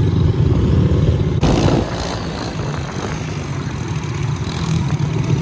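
Small single-cylinder four-stroke pit bike engines, Yamaha TT-R110 type, running steadily at cruising speed, with a brief burst of rushing noise about a second and a half in.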